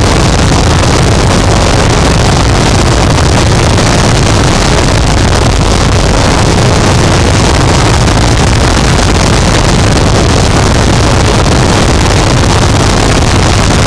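Harsh noise wall: a loud, unchanging wall of dense distorted static, heaviest in a low rumble, with no rhythm, pitch or change.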